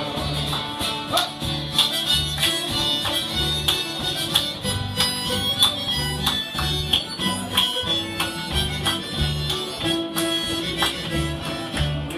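Acoustic folk band playing an instrumental passage: a harmonica carrying the tune over strummed acoustic guitars and a plucked upright double bass sounding steady low notes about twice a second.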